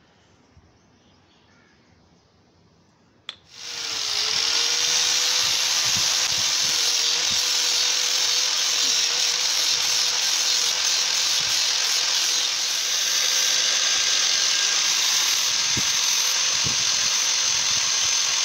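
Electric angle grinder switched on with a click about three seconds in, spinning up and then running steadily with a high whine while a small piece of wood is ground against its abrasive disc.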